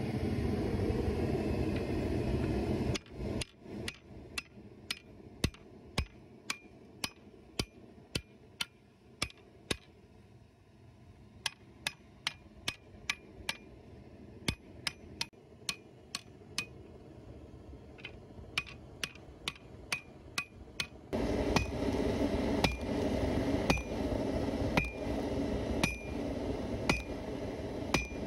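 Hand hammer forging a heated steel leaf spring on an anvil, striking in an even rhythm of about one and a half blows a second; from about two-thirds of the way in each blow rings clearly. A steady rushing noise runs under the first few seconds and comes back near the end.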